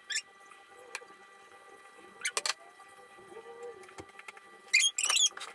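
A spaghetti server clinking and scraping against the pan and the plate while pasta is served, in a few short sharp bursts, the loudest clatter near the end, over a steady hum.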